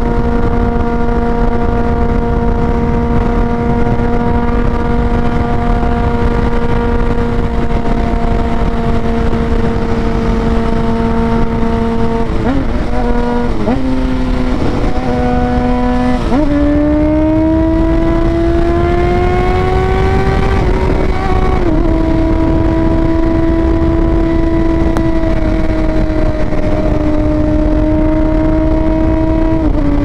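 Sportbike engine under way, holding steady revs at first, then dipping and rising quickly a few times through gear changes, pulling up in a long rising note, and dropping at an upshift to cruise steadily again, over a rush of wind.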